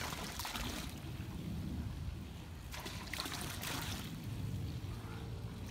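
Pool water splashing around a Great Dane standing in it, in two short bursts about three seconds apart, over a steady low rumble.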